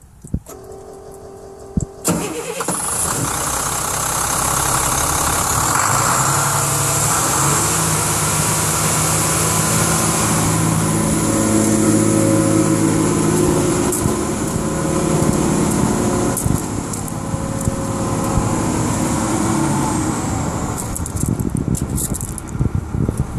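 International DT466E inline-six turbo diesel engine cranked by its starter and firing about two seconds in, then running steadily at idle. Near the end the engine sound drops away, with a fading high whine.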